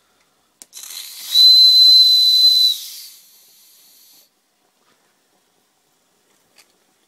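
Schoenner 107/14s toy steam engine's steam whistle giving one short, high-pitched toot of about a second and a half. A click as the valve opens, then a rush of steam hiss around the toot that fades away after it.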